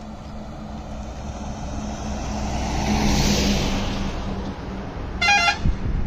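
A motor vehicle passing close, its engine hum and rushing noise swelling to a peak about halfway through and then fading, followed by one short horn toot near the end.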